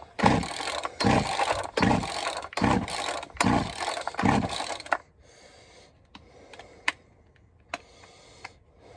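Poulan 2150 two-stroke chainsaw being pull-started: about six quick rasping rope pulls, under a second apart, turning the engine over without it firing. Then a few faint clicks as the saw is handled.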